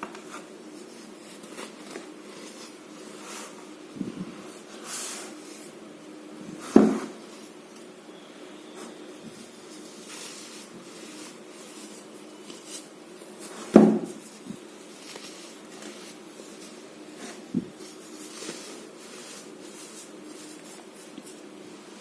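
Fingers working a packed mix of baking soda and cornstarch: soft crunching and rubbing throughout, with two much louder short squeaky crunches about 7 and 14 seconds in and a smaller one near the end.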